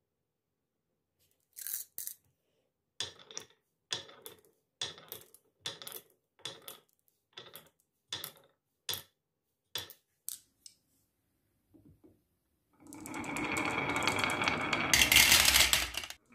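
Glass marbles set one by one into a wooden marble-run groove, each clicking against the wood and the marbles already there, about every half second. Near the end comes a louder continuous clatter of marbles rolling along the wooden track for about three seconds, which cuts off suddenly.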